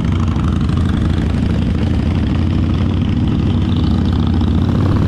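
Harley-Davidson V-twin motorcycle engine running steadily while riding, a continuous low rumble.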